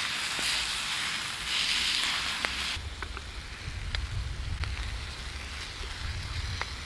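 Ground meat sizzling in a cast iron skillet over a campfire, the hiss loudest for the first few seconds and then settling lower, with a few sharp clicks scattered through it.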